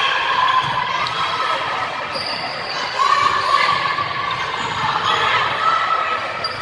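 Volleyball players and spectators shouting and calling out in a gymnasium, with a few thuds of the volleyball being struck during play.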